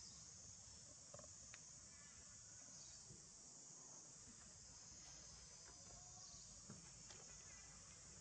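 Faint, steady high-pitched drone of a forest insect chorus, dipping briefly now and then, with a few faint taps.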